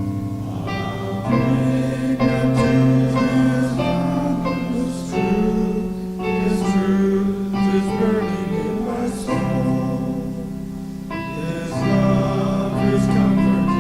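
Congregation singing a hymn in unison and harmony, accompanied by piano.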